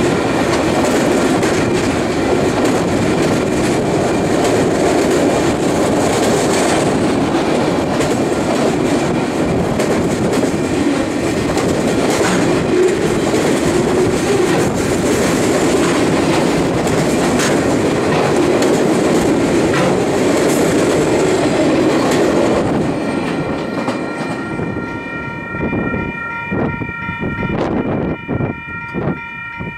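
Train of loaded flatcars rolling past close by: a steady rumble of steel wheels on rail with clickety-clack over the rail joints. About 23 seconds in the last cars go by and the rumble falls away. Wheel clicks remain, along with a steady distant train horn chord of several notes.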